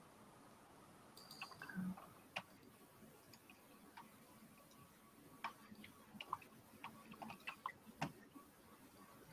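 Near silence: room tone with faint, scattered short clicks, most of them bunched about five to eight seconds in.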